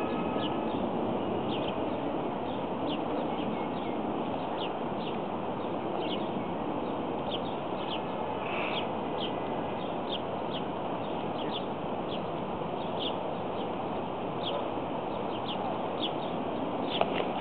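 A bird repeats short, high chirps about two or three times a second over a steady outdoor background hiss.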